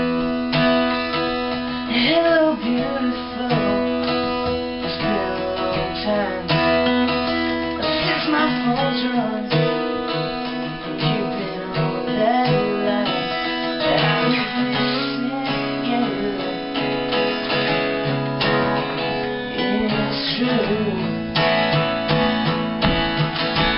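Acoustic guitar strummed in a pop song, with a male voice singing the melody.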